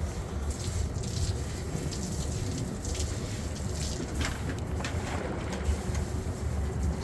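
Boat engine running steadily with wind and water noise on deck, and a few brief swishes.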